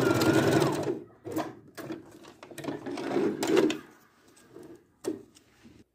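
Electric domestic sewing machine stitching a zipper seam, finishing with a back-tack, then stopping about a second in. After that come a few short bursts of noise and clicks as the fabric and thread are handled and pulled out from under the presser foot.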